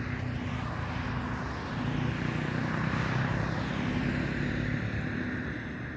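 Motor vehicle noise: a steady low engine hum with a rushing sound that swells about two seconds in and eases off a couple of seconds later, as if a vehicle passes.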